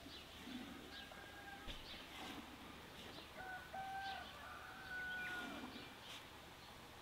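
Faint chicken calls: a short drawn-out call about a second in, then a longer steady one lasting about two seconds in the middle.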